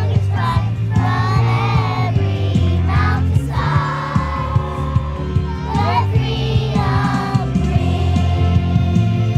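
Live band playing a song with singing, over a steady bass line and a drum beat.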